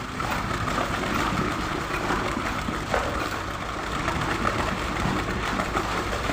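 Concrete pump running steadily during a concrete pour: an even, unbroken machine noise.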